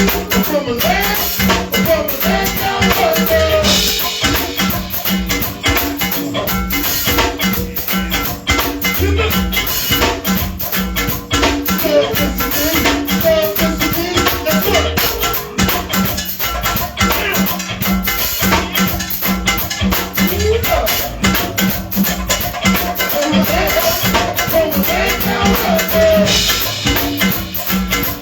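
A live band playing: a steady drum beat with shaker-like percussion, and a lead line over it that bends in pitch in short phrases.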